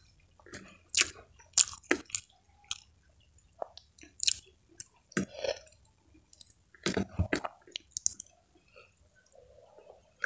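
Close-miked chewing of a mouthful of rice and water spinach eaten by hand: irregular wet mouth clicks and small crunches.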